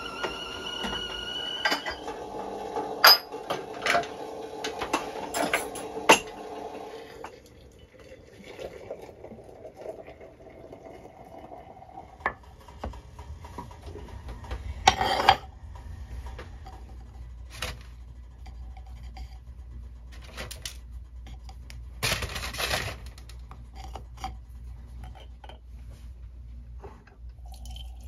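Crockery and utensils clinking and knocking on a kitchen worktop while tea is made: a run of sharp clinks and clatters. A high steady whistling tone sounds for the first two seconds and cuts off, and a low steady hum comes in about halfway through.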